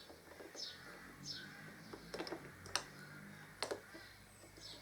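A few faint, sharp clicks from the detachable windscreen's mounting hardware being handled and clicked into place. Behind them, a bird repeats a short, high, falling chirp.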